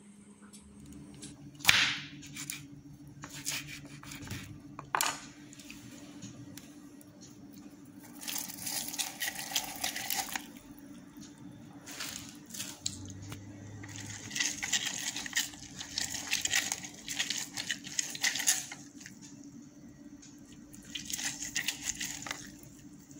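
An orange half being twisted and pressed by hand on a manual citrus reamer, giving three spells of wet rasping as the juice is squeezed out. Two sharp knocks come in the first few seconds.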